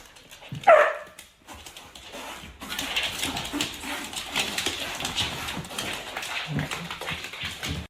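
A dog gives one short, loud call with a falling pitch about a second in. From about two and a half seconds in comes a steady stretch of rustling, clattering noise with many small clicks.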